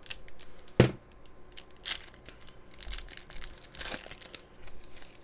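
Foil wrapper of a trading-card pack crinkling and tearing as it is cut with a knife and pulled open, with scattered crackles and one sharp knock about a second in.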